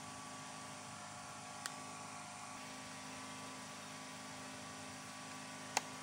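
Steady electrical hum with a few fixed tones, broken by two small clicks: a faint one about a second and a half in and a sharper one near the end as the wiring in the plastic junction box is handled.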